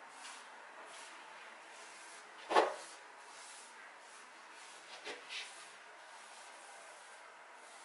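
Wet wipe rubbing softly on a glazed tile floor, with one sharp knock about two and a half seconds in and two lighter knocks about five seconds in.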